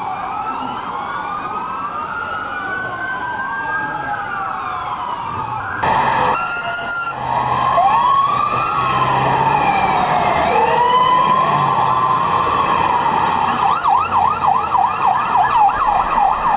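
Several emergency-vehicle sirens wailing at once, their rising and falling tones overlapping. About six seconds in the sound changes abruptly: one siren wails slowly, then switches to a fast yelp of about four cycles a second near the end.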